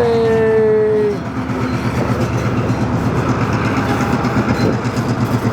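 A train sounds its horn, one tone falling slightly in pitch, for about a second, then the train runs past with a steady rumble and clatter of its wagons.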